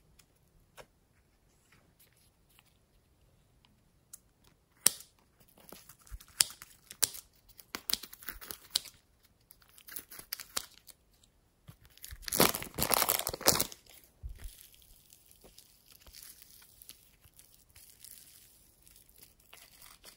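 Plastic packet of slime crinkling in the hands and being cut open with scissors, the plastic tearing loudest for about two seconds just past the middle. Softer rustling of the plastic follows to the end.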